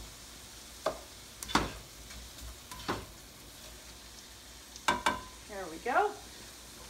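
Mushrooms, tomatoes, onion and garlic sizzling in a skillet while a plastic spatula stirs them, with several sharp knocks and scrapes of the spatula against the pan.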